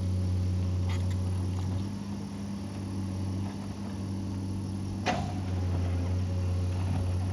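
Excavator's diesel engine running steadily, with a light click about a second in and a sharp clank about five seconds in.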